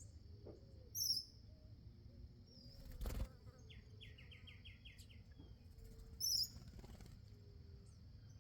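Small songbirds calling at a feeder: two short, high chirps and a quick run of about seven notes, with a brief rustle about three seconds in, over a steady high-pitched hum.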